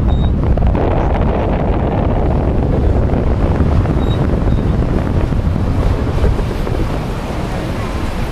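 Wind buffeting the microphone on the open bow of a moving lake boat, a steady low rumble, mixed with the wash of water along the hull.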